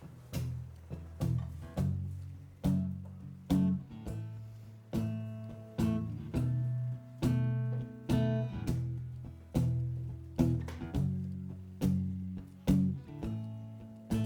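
Acoustic guitar playing a song's instrumental intro: chords plucked one or two a second, each struck sharply and left to ring out.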